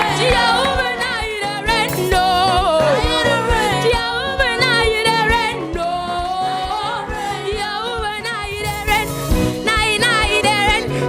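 A girl singing a gospel song over instrumental backing, holding wavering, vibrato-laden notes and runs without clear words.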